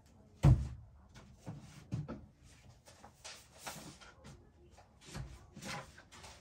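Handling noises while searching through sheets of paper: one loud knock about half a second in, then lighter knocks and rustling of paper being shuffled and slid.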